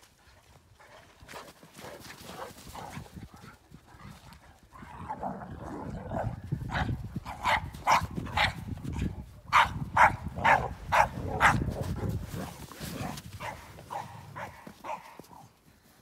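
Dogs barking: runs of quick, sharp barks, loudest in the middle, with fainter barks near the end.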